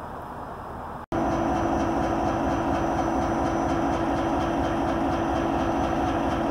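Norfolk Southern diesel locomotive running at a standstill: a steady, loud engine hum with a faint regular pulse. It comes in about a second in, after quieter distant rumble.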